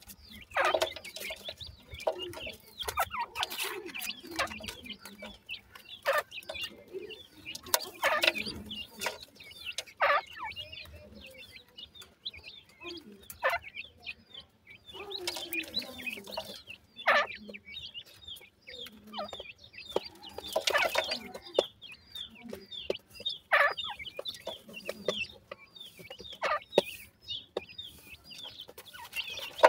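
Young francolin chicks calling with many short, high peeps and some lower calls, with scattered sharp clicks and scuffs as they peck and scratch in loose soil.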